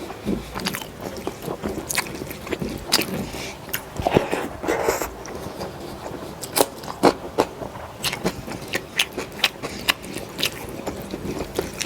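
Close-miked eating sounds: a person chewing and biting food, with many sharp, irregular mouth clicks and a denser stretch of chewing about four seconds in.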